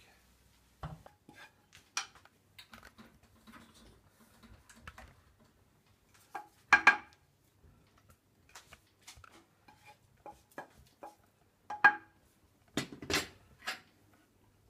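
Wooden spatula scraping and knocking against a frying pan and the rim of a saucepan as stewed cabbage is pushed from the pan into the pot. Irregular clacks and scrapes, with the loudest knocks about seven seconds in and twice more near the end.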